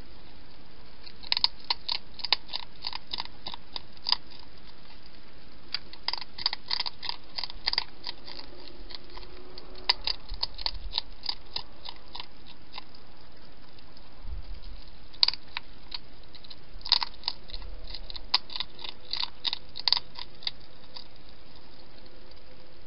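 A wild hedgehog chewing food from a bowl: runs of sharp, clicking chews, about four a second, in four bouts with short pauses between them.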